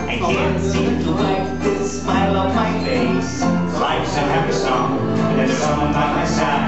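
Music playing loudly, with long held notes over a steady bass line.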